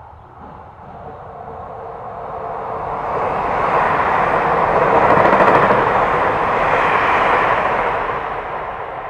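A vehicle passing by: its noise swells to a peak about halfway through, then fades away.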